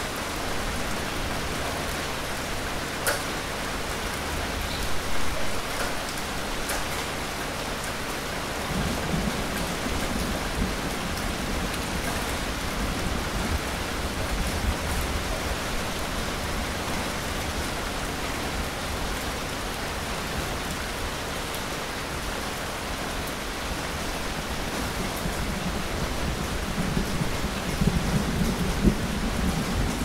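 Steady rain falling, with a few sharp drip-like taps in the first seconds and low rumbling around ten seconds in and again near the end.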